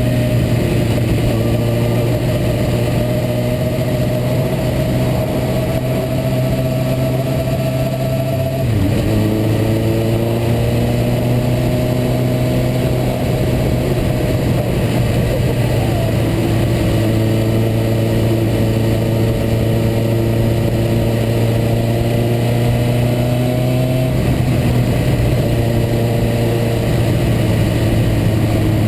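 Suzuki GSX-R 750 inline-four engine running under way at moderate revs. The pitch climbs slowly, then falls suddenly about nine seconds in and again about five seconds before the end, as the bike changes up a gear.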